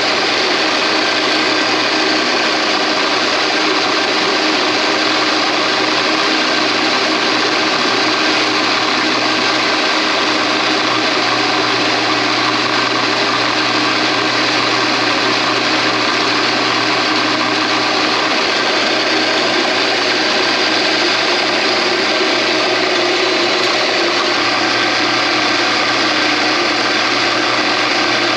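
Drill press running steadily, its motor and spindle turning while the bit bores mounting holes in a metal bar.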